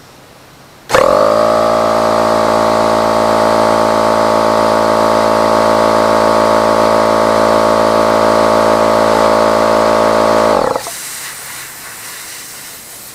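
Husky H1301F air compressor's motor and pump running steadily, starting abruptly and cutting off after about ten seconds, followed by a fading hiss of escaping air.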